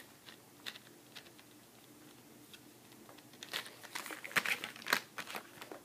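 Cardboard boxes and packaging being handled and rummaged through by hand: a few faint taps at first, then a burst of crinkling and scraping from about three seconds in.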